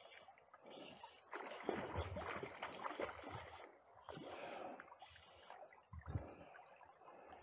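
Water splashing and sloshing in irregular surges, with low thumps, loudest about a second and a half in: a hooked sea trout splashing about on the surface rather than running.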